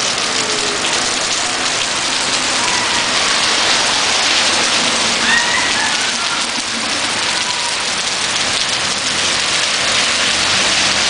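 Rain falling steadily on a paved street and sidewalk, a dense, even hiss.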